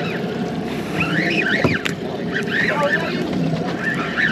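Conventional slow-pitch jigging reel cranked hard against a heavy fish, a grouper, with a squeak that rises and falls about once a second as the handle turns, over wind on the microphone. One sharp click partway through.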